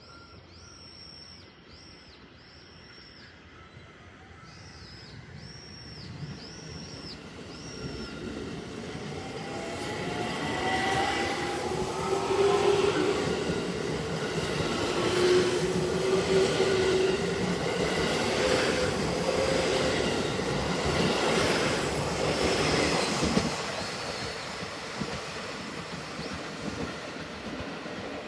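Electric multiple-unit train running through the station: it builds up over the first ten seconds with a motor whine that shifts in pitch, then wheels click over the rail joints while it is loudest, and it eases off near the end.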